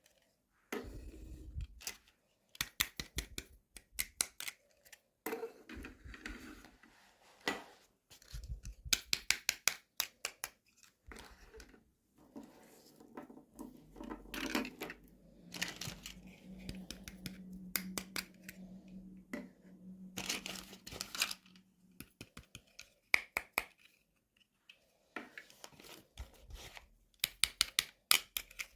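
Toy packaging being unboxed by hand: repeated runs of quick, crisp clicks and snips, with rustling and scraping between them.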